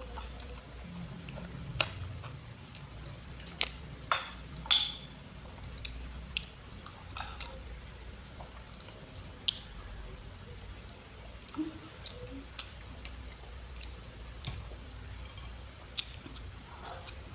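Close-miked chewing and wet mouth sounds of someone eating pecel sayur in peanut sauce, with scattered sharp clicks and crunches, several louder ones in the first five seconds.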